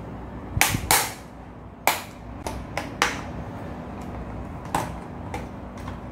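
Plastic food container handled and knocked against a countertop: about nine sharp, irregular clicks and knocks, the loudest within the first three seconds.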